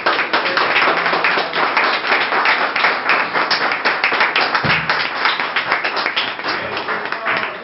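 A small group of people applauding, with dense, steady hand clapping.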